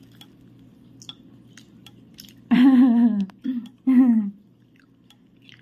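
Bamboo chopsticks tick faintly a few times against rice-cake pieces on a non-stick electric pan, over a low steady hum. About halfway through, a person's voice sounds three times without clear words. The voice is the loudest thing.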